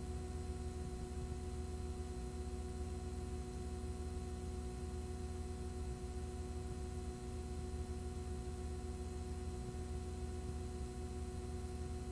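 Steady electrical hum with several fixed tones over a constant hiss, unchanging throughout.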